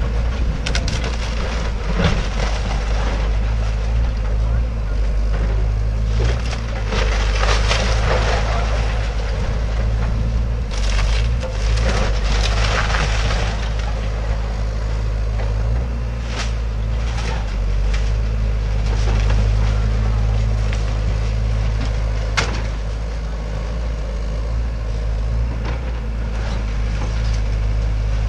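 Hyundai tracked excavator's diesel engine running steadily while its arm tears apart a wood-framed house: timber cracking and splintering with debris crashing down in several spells, and sharp snaps about two seconds in and again near the end.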